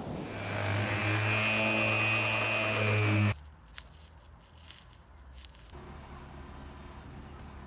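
A power tool motor running steadily with a low hum and hiss, which cuts off abruptly about three seconds in, leaving quieter background.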